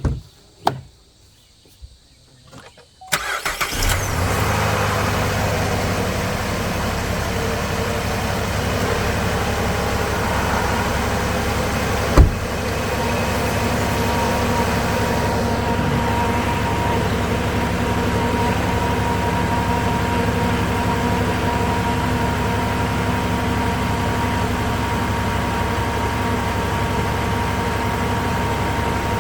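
2008 Saturn Vue's engine starting about three seconds in, after two short knocks, then running at a steady idle to build pressure for an air-conditioning check. A single sharp click comes about twelve seconds in, and a thin steady whine joins in midway.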